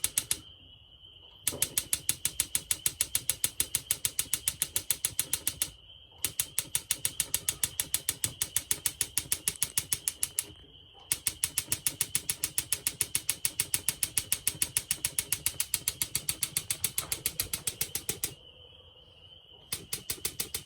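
Electronic spark igniter of a propane heater clicking rapidly and evenly, about six sparks a second, in long runs broken by a few short pauses. The pilot has not yet lit while the gas system primes.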